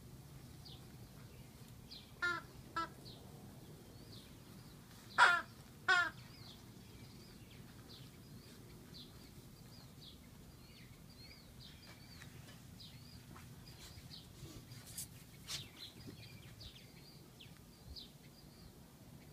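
Birds chirping faintly outdoors throughout, with two pairs of short, loud, harsh calls, like crow caws, about two seconds in and again about five seconds in.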